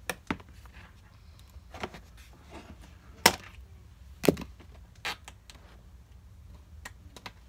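Scissors cutting through plastic zip ties and packing tape on a cardboard box: several sharp, irregular snaps and clicks, the loudest two about three and four seconds in.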